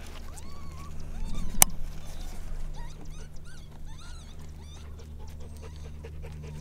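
Coyote-style vocalizing: drawn-out rising-and-falling howl notes, then a quick run of short yips through the middle. A sharp click about a second and a half in stands out above them, with a steady low hum underneath.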